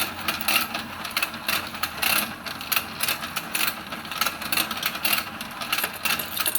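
Battery-powered toy fishing game running: its small motor whirring as the pond turns, with a steady clicking from the gears, about two clicks a second.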